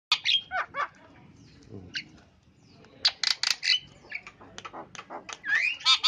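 Javan myna calling: a rapid mix of sharp clicks, harsh squawks and whistled notes that slide up and down in pitch. A loud burst opens, it goes quieter for about two seconds, then the calls come thick and fast again from about three seconds in.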